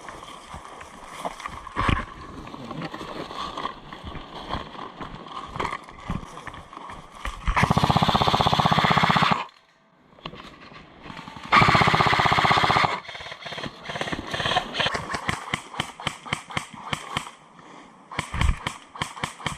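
Airsoft electric gun firing two long full-auto bursts, each a fast, even rattle lasting about one and a half to two seconds, with a short pause between them. Quicker sharp clicks and pops come before and after the bursts.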